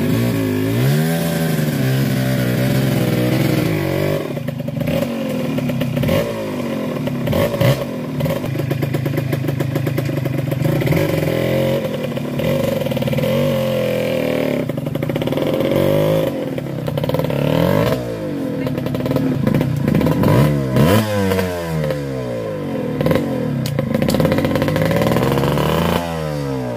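Enduro dirt bike engine revving up and down over and over, in quick repeated bursts near the end, with clattering knocks from the bike over rough trail.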